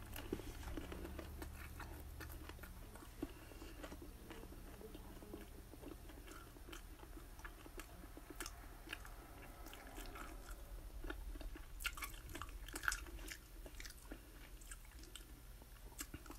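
A person chewing and biting bacon and chicken wings: faint, irregular wet clicks and smacks of the mouth.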